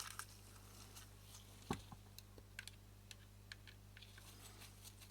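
Faint, scattered small clicks and taps of a small screwdriver working screws into the metal lens housing, over a low steady hum; one tap under two seconds in is a little louder.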